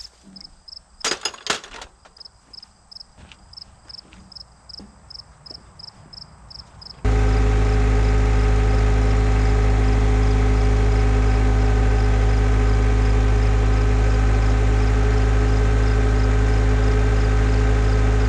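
Insects chirping steadily, about three chirps a second, with a few knocks about a second in. About seven seconds in, a loud steady engine drone starts abruptly and holds at a constant pitch.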